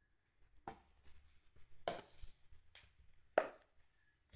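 Footsteps of high-heeled platform sandals on a carpeted floor: four knocks at an uneven pace, the one near the end the loudest.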